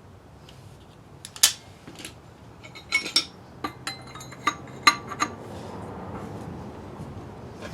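Metal hand tools clinking and knocking against metal engine parts: a string of about nine sharp, ringing clinks, the loudest about a second and a half in and again near five seconds.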